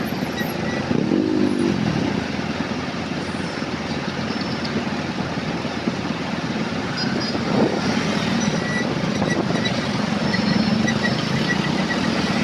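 Road traffic noise: motor vehicle engines running in slow city traffic, with a truck close ahead, over a steady hiss of road noise.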